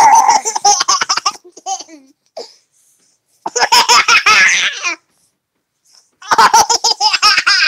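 Loud laughter in three bursts of about a second and a half each, with short silences between.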